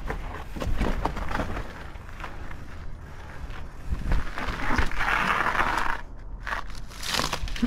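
Mountain bike clattering down a rocky trail: a jumble of knocks as the tyres hit rocks, with the bike rattling over a low rumble. About five seconds in there is a longer scraping hiss of a tyre sliding, and a shorter one near the end.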